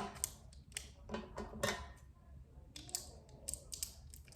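Plastic slime container being picked and pried at by hand: irregular sharp plastic clicks and taps, about eight or ten in all.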